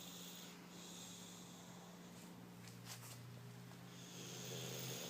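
A sleeping man snoring faintly, one breath swelling louder near the end, over a steady low hum.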